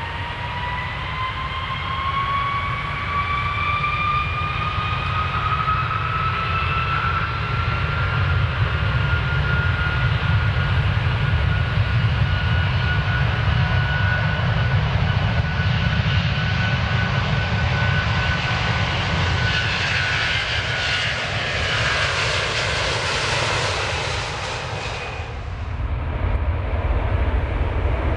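Airplane engines during takeoff: a whine rising in pitch over the first several seconds and then holding steady, over a heavy low rumble. Near the end a broad rushing noise builds up and then cuts off suddenly, leaving the rumble.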